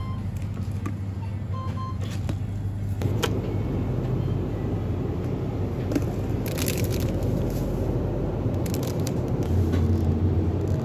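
Steady low hum of a shop's refrigerated display cases and general store ambience, with a few short crinkles and clicks from plastic-wrapped goods being handled.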